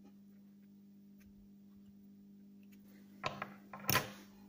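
Hands handling fishing line while tying a hook onto a leader: a few short clicks and rustles in the last second and a half, the loudest just before the end, over a faint steady low hum.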